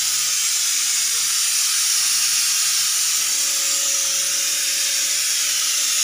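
Stovetop pressure cooker on a gas burner releasing steam through its whistle valve: a steady hiss of escaping steam, the sign that the cooker is up to pressure.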